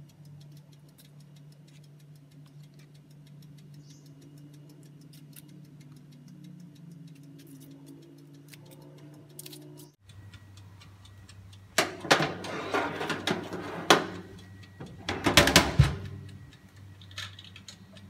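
Metal baking tin and wire oven rack clattering and knocking in loud bursts over about four seconds as the tin is slid into a countertop electric oven and the door is shut. Before this there is a steady faint ticking over a low hum.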